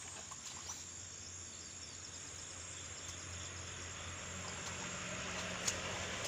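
Steady high chirring of insects, with a soft wash of noise that grows through the second half and a single click near the end.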